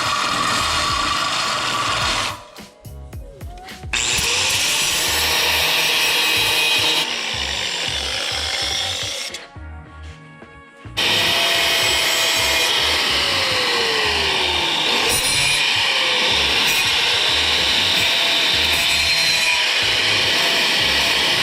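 Handheld power tool running hard in long stretches, stopping twice briefly; its pitch sags under load and picks back up.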